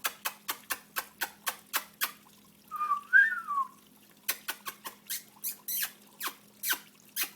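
Water dripping in short plinks, about four drops a second at first and then slower and uneven. About three seconds in comes one loud whistled call, about a second long, that rises and then falls in pitch.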